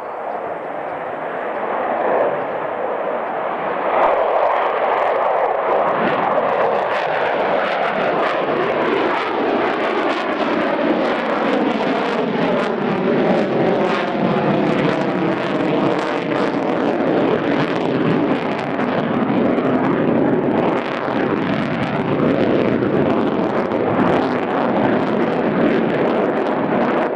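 Jet noise from the twin turbofan engines of a Sukhoi Su-57 (T-50 prototype) fighter in display flight. It swells over the first few seconds, then holds loud and steady as the jet manoeuvres overhead, with a sweeping, phasing quality in the middle.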